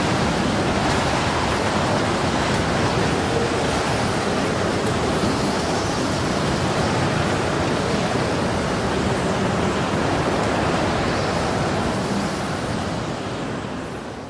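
Steady rushing wind noise with no pitch or rhythm, fading out near the end.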